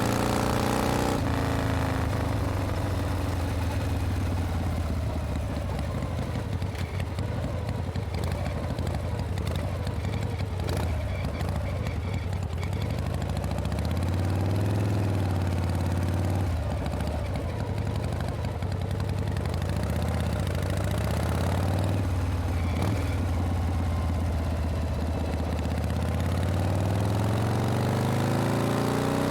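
Harley-Davidson Panhead V-twin motorcycle engine running under way at low, steady revs. Its pitch falls in the first second, and rises over the last few seconds as the bike accelerates.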